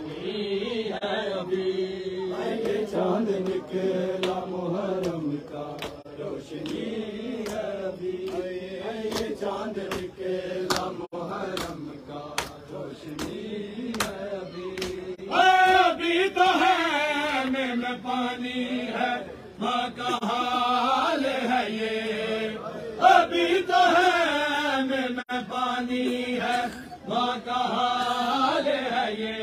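A crowd of men chanting a noha, a Shia lament, with matam: bare hands slapping chests in a steady rhythm. About halfway through, a louder lead voice takes up the verse.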